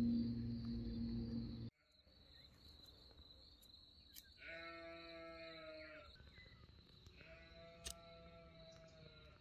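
Music stops abruptly after the first couple of seconds. Then come two long bleats from livestock, each about a second and a half, over a steady high insect chirring. A single sharp click comes near the end.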